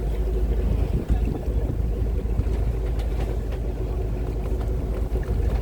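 Pair-trawler fishing boat's diesel engine running steadily: a constant low drone with a steady hum above it.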